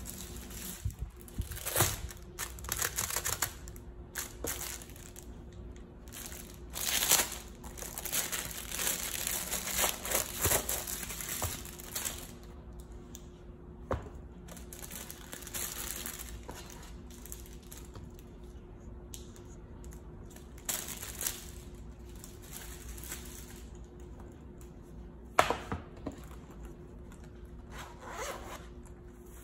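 Handling noises from an iPad case and a plush sleeve being worked with the hands: irregular rustling, crinkling and scraping of fabric and plastic, with a few sharp knocks, the loudest near the end. A faint steady hum runs underneath.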